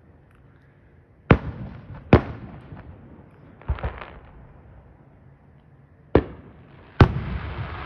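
Aerial firework shells bursting in the sky: a string of sharp bangs, about six, irregularly spaced, two of them close together near the middle. After the last and loudest bang near the end, a steady hiss follows.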